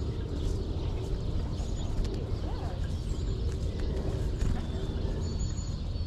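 Faint, high, thin calls of small woodland birds, a few short notes clustered near the end, over a steady low rumble of background noise.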